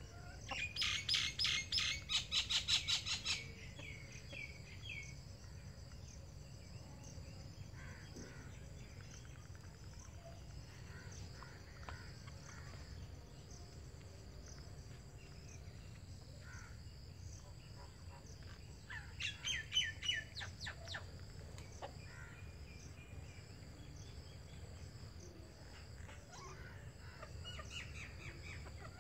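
Birds chirping: two loud bursts of rapid repeated chirps, one near the start and one about two-thirds of the way through, with a few fainter calls between. Under them runs a steady high insect drone, like crickets.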